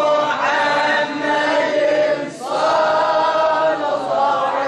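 Voices chanting a drawn-out melodic devotional refrain of a mawlid recitation in praise of the Prophet, held in long sung lines, with a brief pause about halfway.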